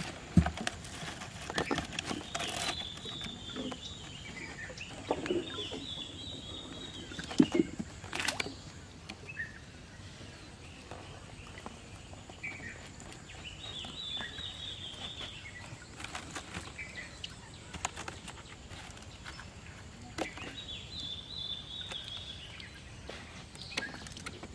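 A bird calls four times, each call about two seconds long and arching up then down in pitch, with scattered knocks and clicks in between.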